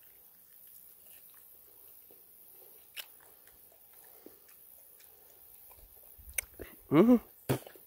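A person chewing a piece of fried fish, quietly, with faint small mouth sounds and a single click about three seconds in. Near the end come a few louder clicks and a brief voiced sound.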